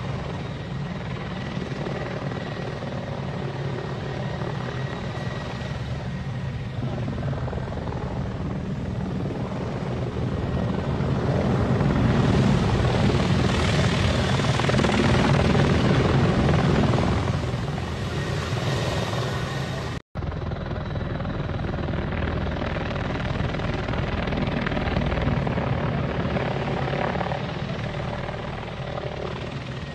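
Helicopter flying, its rotor and turbine running steadily, louder for several seconds around the middle, with a momentary dropout about two-thirds of the way through.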